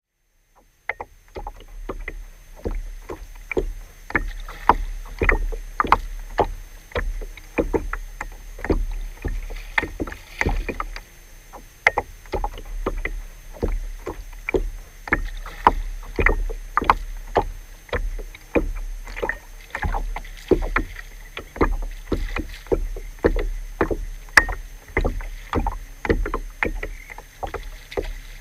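Choppy water slapping against the bow of a small boat such as a kayak, in quick irregular smacks about two a second, over a steady low wind rumble.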